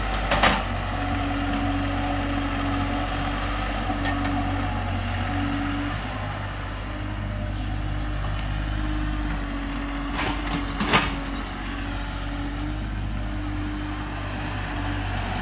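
IHI IS-30GX mini excavator's diesel engine running steadily while it digs, with a steady tone that breaks off and returns as the machine works. Two sharp clanks stand out, one just after the start and another about eleven seconds in.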